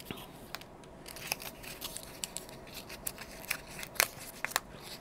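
Quiet crinkling of a small paper wrapper as it is peeled off a handmade watercolour half pan, with irregular light ticks from fingers and the pan, a few sharper ones about four seconds in.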